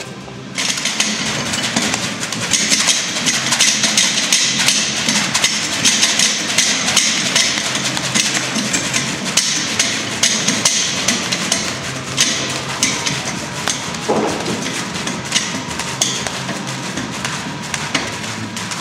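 Heavy battling ropes whipped in fast, continuous waves, slapping the concrete floor over and over in a rapid rhythm. The slapping starts about half a second in.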